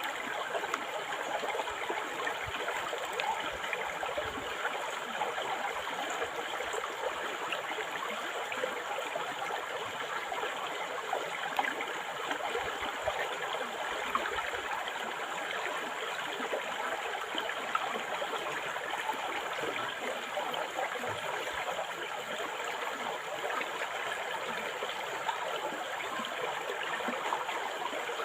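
River water flowing over stones in a steady rushing burble, with small splashes and gurgles throughout.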